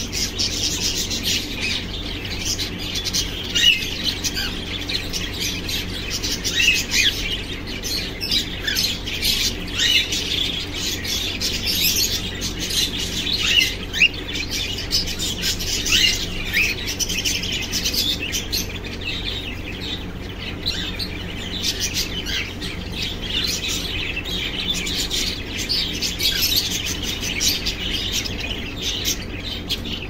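A flock of cockatiels chirping and chattering without pause, many short high calls overlapping, with an occasional louder squawk.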